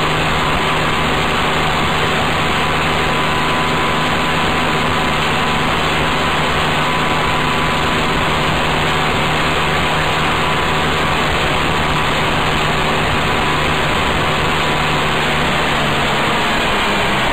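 Adly GK125R buggy's small engine running steadily at road speed, under heavy wind and road noise on the outside-mounted camera's microphone. The engine note drops near the end as it slows.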